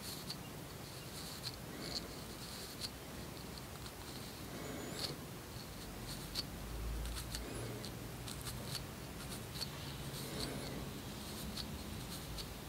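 Faint scratching at the scalp as dandruff flakes are scraped and lifted, heard as irregular small clicks and scratchy ticks, roughly one a second, over a low steady hum.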